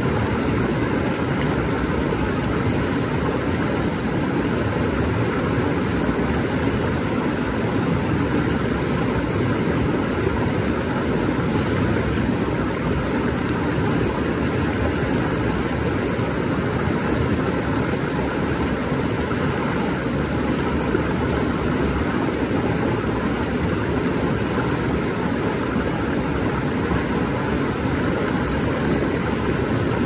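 Small rocky creek rushing over stone ledges in a low cascade of white water: a steady, unbroken rush.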